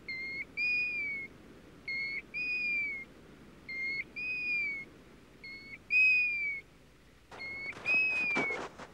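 A plover whistling five two-part calls about 1.8 s apart, each a short note followed by a longer note that rises slightly and falls at its end. Near the end, a brief burst of crackling rustle runs under the last call.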